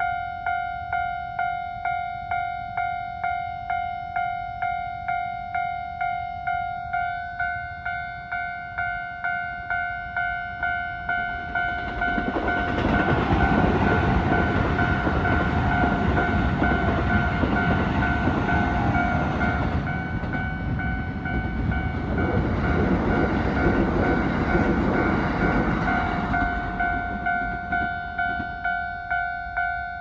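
Level crossing's electronic warning bell ringing steadily, about two strokes a second. In the middle a Keikyu electric train passes, its rumble of wheels on rail rising and then fading away, drowning out the bell for about fifteen seconds.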